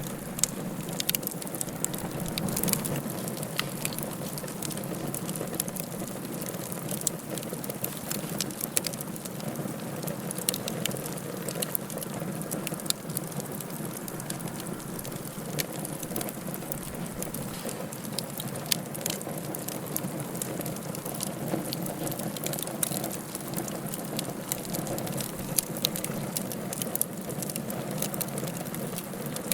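Wood fire burning in a fireplace, a steady low hiss of flames broken by many small irregular crackles and pops.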